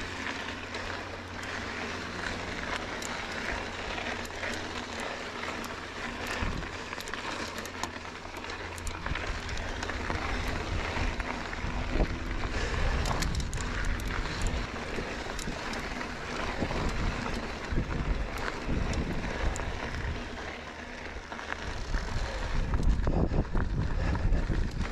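Mountain bike riding over dirt and gravel singletrack: knobby tyres crunching along with scattered clicks and rattles, and wind buffeting the camera microphone, growing louder in the second half.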